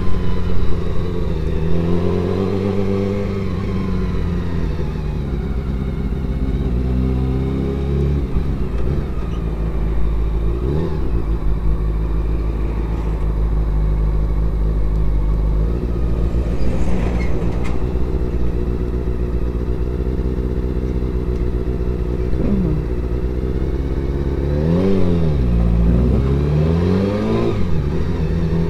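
Honda CBR400RR's inline-four engine running while riding in town, heard through a helmet-mounted camera's microphone, its revs falling and rising several times, most markedly near the end.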